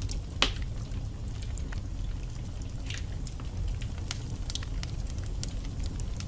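Burning logs in a fireplace crackling, with scattered small pops over a low steady rumble, and one sharper pop about half a second in.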